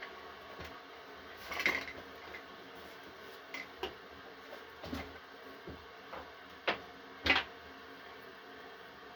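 Scattered clicks and knocks of a PC power supply's metal case, fan and parts being handled during disassembly and cleaning, a few every second or so, the sharpest two well after the middle.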